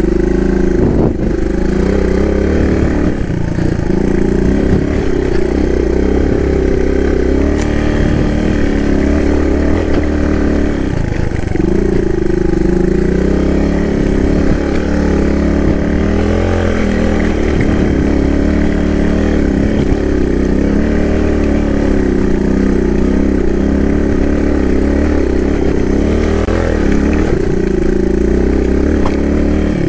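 Suzuki DR200's single-cylinder engine running continuously while riding a dirt trail, its revs rising and falling with the throttle.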